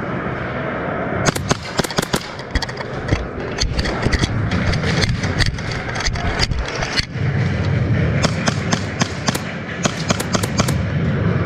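Airsoft gunfire in a close-quarters game: scattered sharp cracks and quick clicks of shots and BB hits, coming in three clusters, about a second in, in the middle and near the end, over a steady low rumble.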